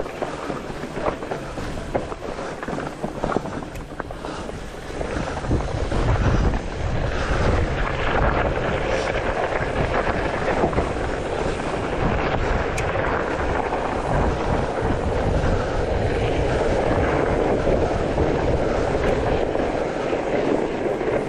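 Mountain bike ridden fast down a forest singletrack over dirt and snow: tyre noise with the bike rattling and knocking over bumps, and wind buffeting the microphone from about five seconds in.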